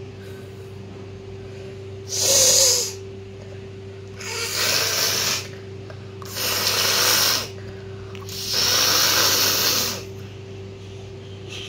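A person blowing their nose hard four times, each blow a noisy rush of about a second or more.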